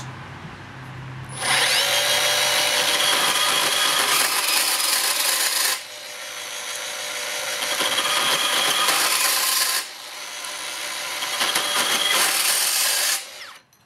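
Makita XGT PB002G 40V brushless portable band saw running at top speed and cutting through an old mitre saw support. The loud cutting noise starts about a second and a half in, eases briefly twice, and stops abruptly near the end.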